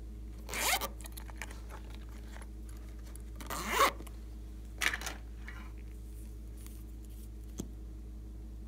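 Zipper on a silicone pop-it pouch being pulled in short strokes: one about half a second in, a louder one about three and a half seconds in, and a shorter one about five seconds in, followed by a small click near the end.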